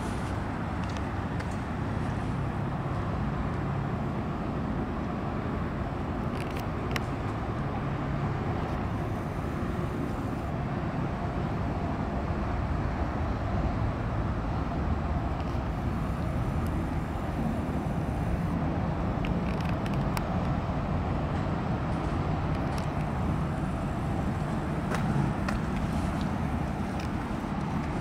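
Steady low rumble of distant city traffic, with a few faint clicks.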